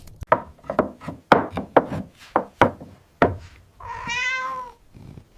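A quick, irregular series of knocks and taps, like pieces of wood being set down, over the first three seconds, then one wavering cat meow about four seconds in.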